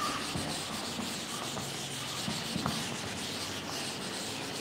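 A chalkboard being rubbed clean by hand with an eraser: a steady scrubbing and rubbing.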